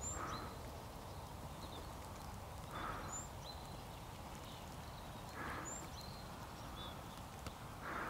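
Outdoor ambience with a steady low rumble, a short noisy animal call repeated four times about every two and a half seconds, and thin high bird chirps just after most of the calls.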